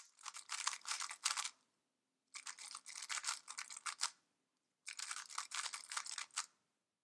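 Moyu WeiLong GTS2 M 3x3 speed cube, freshly lubricated with silk lube, being turned fast in three bursts of rapid plastic clicking, each lasting one and a half to two seconds.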